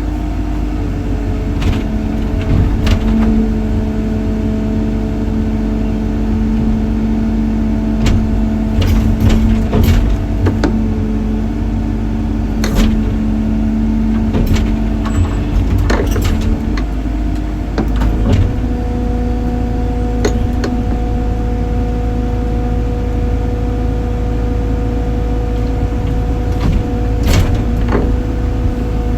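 Heavy machine's engine running steadily, its pitch shifting about two-thirds of the way through, with scattered sharp knocks and clanks.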